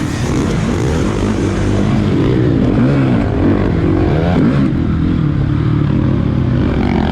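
Several motocross bikes racing, their engines overlapping, each revving up and dropping in pitch again and again as the riders work the throttle and shift.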